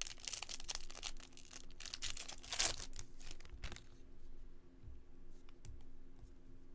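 A trading card pack's wrapper being torn open and crinkled, with dense rustling for the first few seconds and one loudest rip partway through, then only a few faint clicks.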